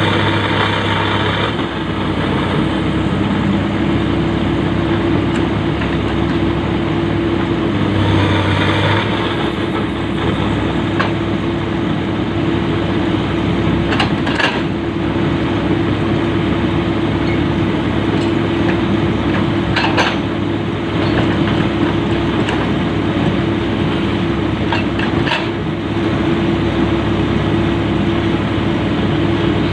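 Komatsu PC200 excavator's diesel engine running steadily, getting louder briefly at the start and again about 8 seconds in, with a few sharp knocks around the middle.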